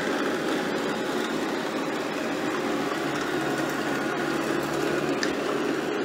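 Shark AV2501AE robot vacuum running on carpet: a steady whirr from its suction motor and brushes, with a low hum underneath.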